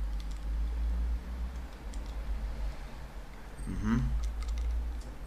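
A person sipping and tasting a drink: small scattered clicks and handling sounds over a steady low rumble. About four seconds in comes a short voiced sound rising in pitch.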